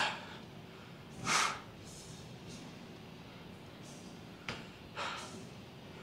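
Short, forceful breaths pushed out during reps of a dumbbell overhead press, a strong one about a second and a half in and a fainter one near the end, with a light click between them.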